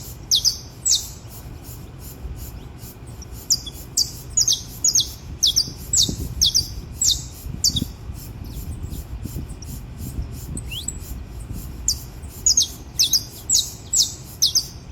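Saffron finch singing: quick runs of short, sharp, high notes, each sweeping downward, with pauses between the runs.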